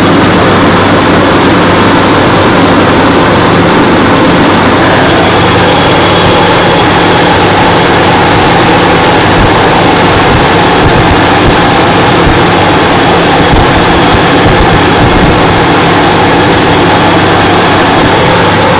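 Toyota T100 pickup's engine running with a loud, steady low hum and a dense rushing noise over it: the weird noise the truck makes every morning.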